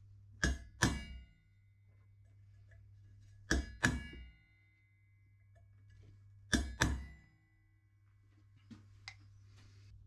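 Hammer striking a centre punch on steel box section to mark hole centres: three pairs of sharp, ringing metal strikes, the two blows of each pair about a third of a second apart and the pairs about three seconds apart. Two light clicks near the end.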